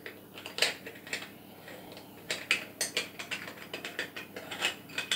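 Metal moka pot being unscrewed by hand after brewing: the threads between the top and the boiler grind and click in an irregular string of small ticks as the wet pot is twisted apart.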